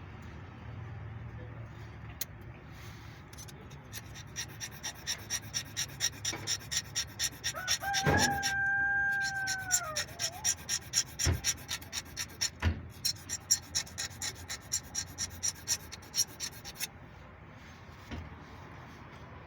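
Rhythmic scraping or rubbing strokes, about two or three a second, that stop near the end, with a brief held squeal about halfway through and a couple of sharp knocks.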